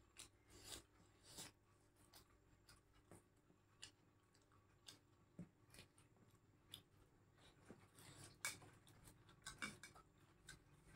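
Faint eating sounds: scattered soft clicks and smacks of chewing, and fingers mixing rice on a steel plate, a little busier near the end.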